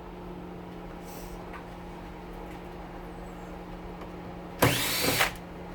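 An electric drill-driver spins up and runs briefly, under a second, about four and a half seconds in, its pitch rising as it gets up to speed. Underneath is a steady low hum from a kitchen stove fan.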